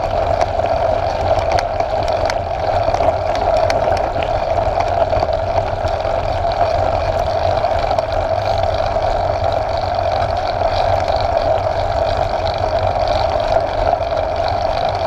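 Steady rush of riding a mountain bike along a gravel track: wind on the microphone and tyres rolling over loose stones, with small scattered rattles and clicks.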